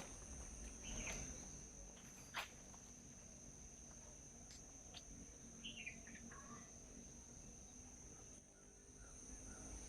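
Steady high-pitched insect drone, with a few soft bird chirps, a short falling bird call about six seconds in, and a few sharp clicks.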